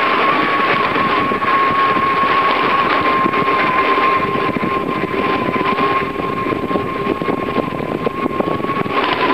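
Bicycle riding on an asphalt road: a steady rush of wind on the bike-mounted camera's microphone and tyre noise, with a constant high whine running through it.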